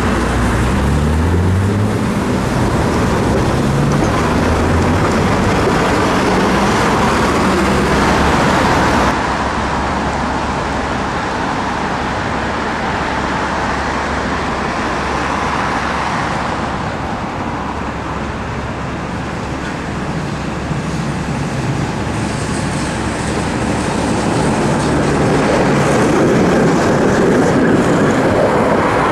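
City street traffic: vehicles passing and running on a road, a steady wash of noise. In the first couple of seconds a motor rises in pitch as a vehicle pulls away, and the sound changes abruptly about nine seconds in.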